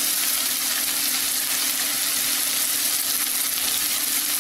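Sliced onions just added to hot oil in a non-stick kadai, sizzling steadily as they begin to fry.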